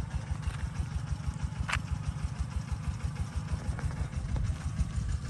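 Small engine idling with a steady, rapid low putter.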